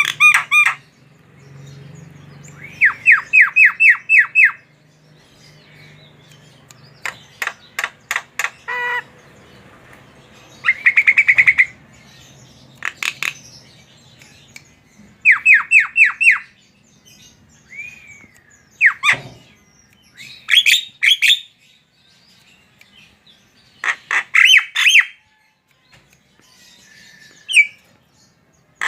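Javan myna (jalak kebo) singing energetically: bursts of quick repeated notes, each about a second long and several seconds apart, mixed with harsh squawking notes.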